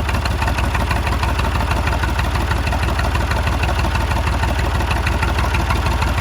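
Backhoe's diesel engine running steadily at idle on only the fuel left in its filters, a fast even clatter of firing strokes.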